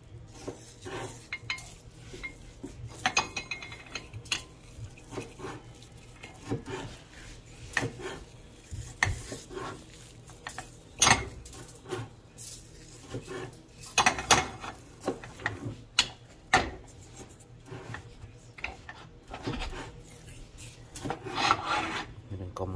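Fingers rubbing coarse salt and black pepper into a large raw ribeye steak on a ceramic plate: irregular scratchy rubbing strokes, with a few sharper knocks.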